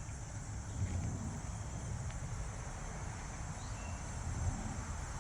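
Quiet background ambience: a steady high-pitched hiss over a low rumble, with no typing or other distinct events.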